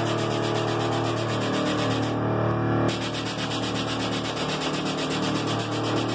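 Air-ride suspension on a bagged pickup, worked from an AccuAir SwitchSpeed controller: a loud hiss of air through the valves with a rapid fluttering texture over a steady hum. The hiss cuts out for under a second about two seconds in, then starts again and stops at the end.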